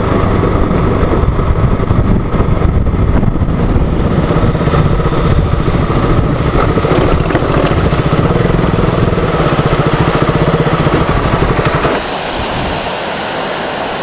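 Motorcycle engine running as the bike rides along. About twelve seconds in the engine sound falls away, leaving the steady rush of a waterfall.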